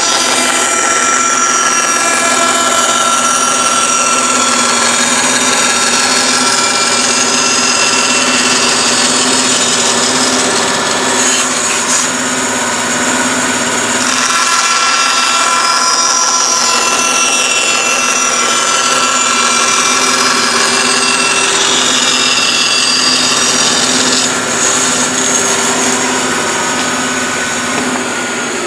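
Bandsaw running and cutting the blade slots into wooden side pieces: a steady motor hum with a blade hiss whose pitch shifts through the cuts, easing off a little near the end.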